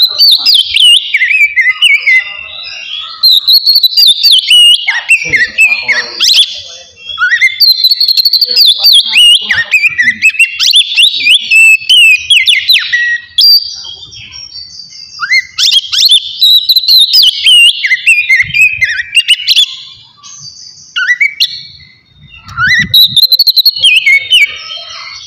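Oriental magpie-robin (kacer) singing: loud, rapid phrases of varied whistles and sweeping notes, broken by short pauses.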